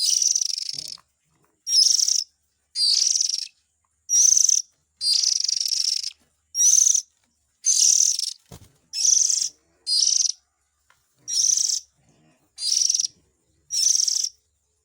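Oriental magpie-robin's harsh, rasping calls, about a dozen in a row with short silent gaps, played as a lure call of the adult and its young.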